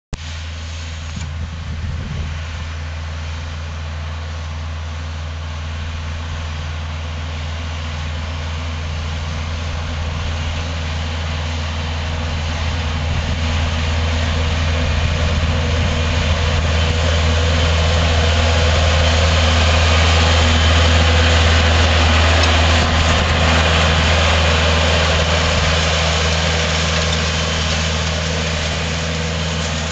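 Kubota compact tractor's diesel engine running steadily under load as it pulls a plow through dry soil. It grows louder as the tractor passes close by, loudest around twenty seconds in, then eases off as it moves away.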